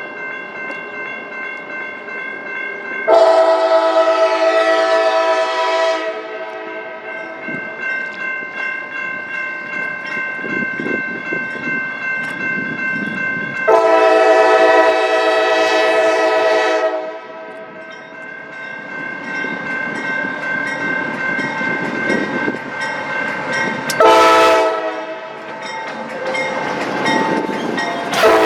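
Freight locomotive's air horn sounding the grade-crossing signal: two long blasts, a short one, and a final long blast beginning near the end. Between the blasts a fainter steady horn tone and the rumble of the approaching train carry on.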